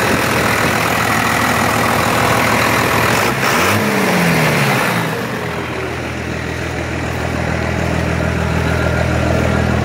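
First-gen Cummins 5.9-litre inline-six turbo diesel idling, heard close up in the engine bay as a loud, even rush for the first five seconds. A short rise and fall in pitch comes about four seconds in. After that the low, steady engine note dominates.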